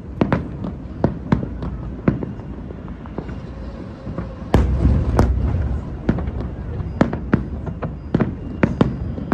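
Aerial fireworks bursting in an irregular volley of sharp bangs, with two heavy, deep booms about halfway through.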